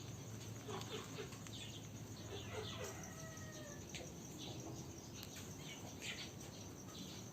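Aseel chickens clucking in short low notes, with one longer, slightly falling call about three seconds in, among short high chirps.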